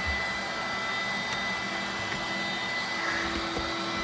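DC electric air pump, run off the Jeep's battery, running steadily as it inflates an air mattress: an even blowing noise with a thin steady whine.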